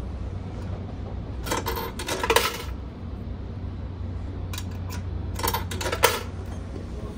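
Coins dropping into a coin-operated timer box and clinking inside it, in two clusters: about two seconds in and again around six seconds. A steady low hum runs underneath.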